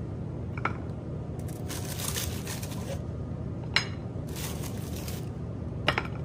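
Crinkling and rustling from food being handled, in two stretches, with a few sharp clicks of things set down. A steady low hum of kitchen ventilation runs underneath.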